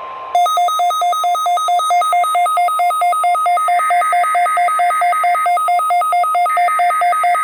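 A weather radio receiver's electronic alert: a rapid beeping that alternates between a low and a high pitch, about five beeps a second, set off by a Required Weekly Test alert. About halfway in, the two-tone data bursts of the EAS SAME header sound underneath it twice.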